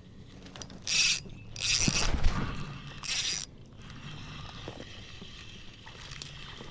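Spinning reel's drag buzzing as fishing line is pulled off the spool by hand, in three pulls: a short one, a longer one and another short one.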